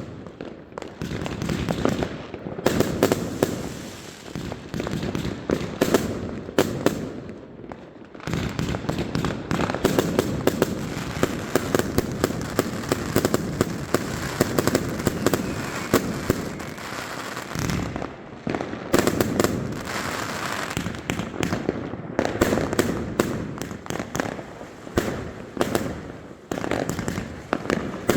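Many fireworks and firecrackers going off at once: a dense, continuous barrage of bangs and crackling with no pause.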